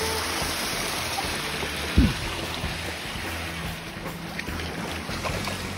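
Shallow creek water running over flat shale rock, an even rushing hiss, with one short low thump about two seconds in.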